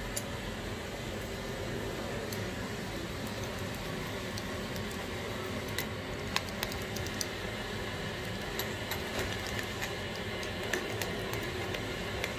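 Steady background noise with scattered light clicks and ticks, more frequent from about six seconds in, as a metal hand tool works at the valve stem of a truck inner tube.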